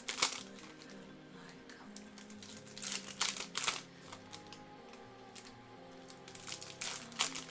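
Quiet background music with held tones, over bursts of crinkling and rustling from hockey card pack wrappers and cards being handled, about three seconds in and again near the end.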